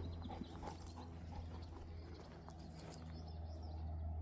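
Light footfalls and rustling in meadow grass, a run of faint soft ticks, under a steady low rumble, with a few short bird chirps.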